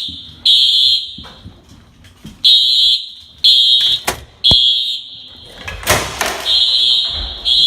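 Building fire alarm horns sounding the evacuation signal: three high blasts about a second apart, then a pause of roughly a second and a half, repeating. Each blast trails off in echo. A sharp click comes a little after midway and a heavy clunk about six seconds in.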